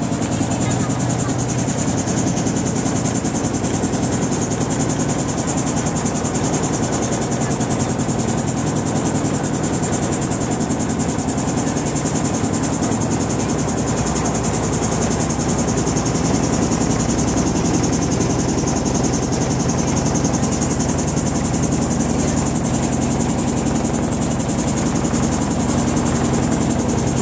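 Tourist motorboat's engine running steadily under way, an even mechanical drone with a steady high whine above it.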